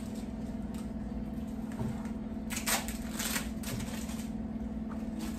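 Plastic wrappers of individually wrapped cheese slices crinkling as they are peeled off, with a cluster of crackles about halfway through.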